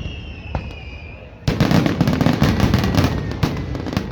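Fireworks display: a single bang about half a second in, then from about a second and a half in a dense crackling barrage of many quick reports. A high whistle, slowly falling in pitch, fades out over the first second.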